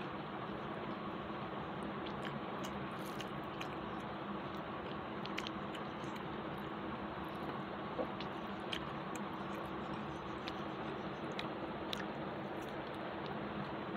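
A person chewing mouthfuls of rice and curry eaten by hand, with scattered small wet clicks of mouth and fingers over a steady background hiss.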